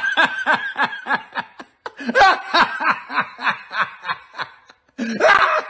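A man laughing hard and loud in rapid rhythmic ha-ha bursts, about four or five a second. The laughter comes in three bouts with brief breaks for breath between them.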